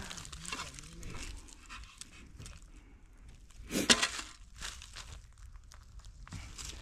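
A person breathing hard, with light rustling and crunching and one louder crunch about four seconds in.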